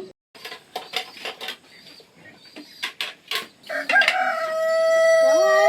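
A rooster crowing: one long, loud, held call starting a little past halfway through. Before it, a string of short sharp clicks or knocks.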